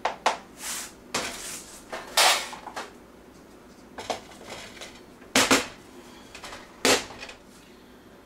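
Irregular clatter and knocks of kitchen containers and utensils handled on a countertop, with a few short scraping sounds. The loudest knocks come about five and a half and seven seconds in.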